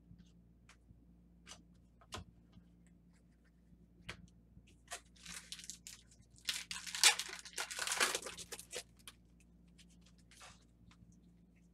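A 2014 Strata football card pack being torn open, its wrapper tearing and crinkling for about four seconds from about five seconds in, after a few faint clicks of cards being handled.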